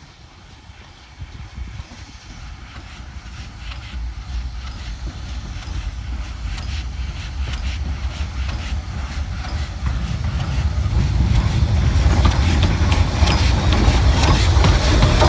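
Steam-hauled train approaching along the track, its low rumble and the clatter of wheels on rail growing steadily louder.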